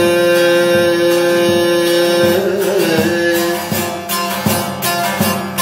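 Bağlama (saz) strummed in a steady rhythm, with a man's voice holding a long sung note that wavers and ends about halfway through; the saz then plays on alone.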